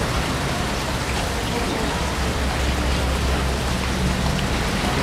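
Steady rushing hiss like rain, with faint voices underneath.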